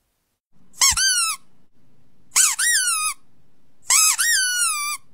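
Squeaky dog toy played as a sound to catch a dog's attention: three squeaks about a second and a half apart, each a quick rising-and-falling squeak running straight into a longer falling one.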